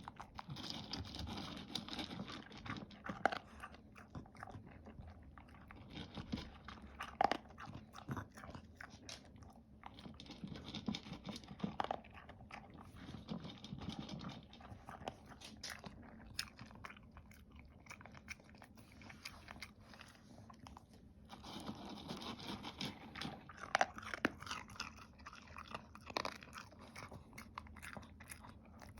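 A dog eating, crunching and chewing its food in bouts with short pauses between, and a few louder crunches standing out.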